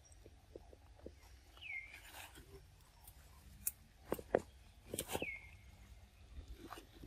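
Crackling and knocking of twigs and leaves as a baby macaque climbs about a tree, loudest between about three and a half and five seconds in. Two short high calls drop in pitch and level off, about two seconds and five seconds in.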